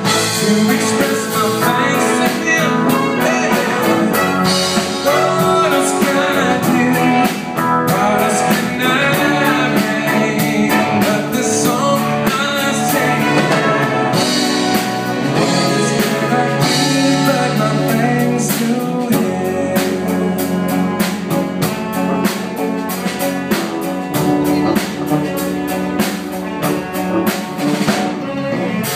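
Live worship band playing, a drum kit keeping a steady beat under guitar and other instruments.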